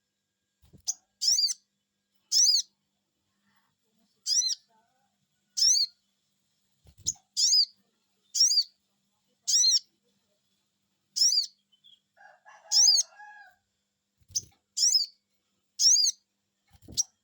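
Sogon (crested jay) repeating short, sharp, high 'cuiit' calls about once a second, with a few uneven gaps. This is a lure call used to make caged sogons answer.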